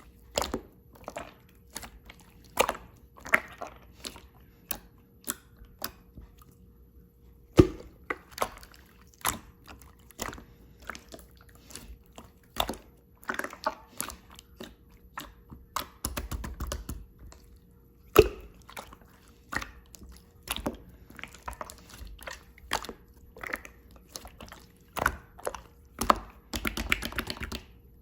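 Clear slime being squeezed and poked by hand: a run of irregular sharp pops and clicks, with short crackling stretches around the middle and near the end.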